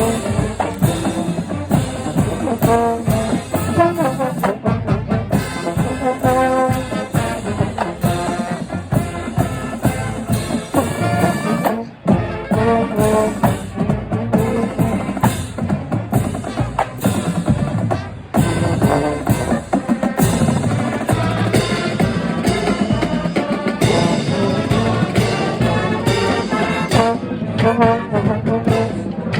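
College marching band playing a pregame piece: brass with trumpets over a drumline with bass drums and drum rolls, with two brief breaks, about twelve and eighteen seconds in.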